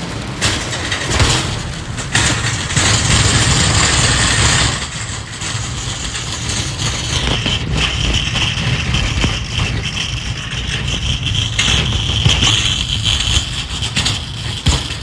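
Loaded wire-basket shopping cart being pushed over pavement: a continuous rolling rumble from its wheels, with the metal basket rattling and clicking over bumps.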